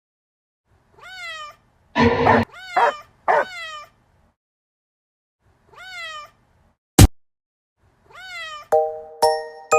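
A cat meowing about six times in short cries that rise and fall, one of them harsher and noisier about two seconds in. A single sharp click comes about seven seconds in, and bright bell-like chiming tones start near the end.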